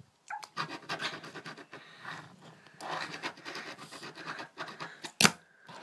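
A Tech Deck fingerboard scraping and rolling over a hard surface, then one sharp clack about five seconds in, the loudest sound.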